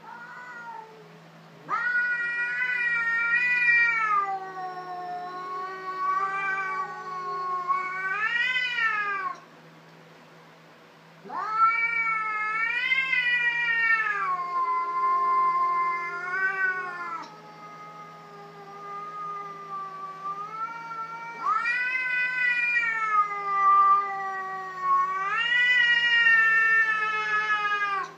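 Domestic cats caterwauling at each other in a fight standoff: long, drawn-out yowls that waver up and down in pitch, in three long bouts with short pauses between.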